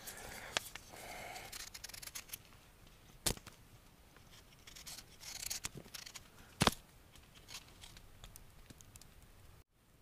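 Knife peeling a raw potato: short, light scraping and cutting strokes, with two sharper clicks about three and six and a half seconds in.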